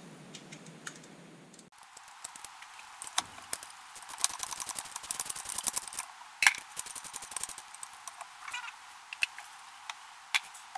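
Hand ratchet clicking in quick runs as a zinc anode bolt is undone on a stern drive, with a few small metal clinks and a sharper knock about six and a half seconds in.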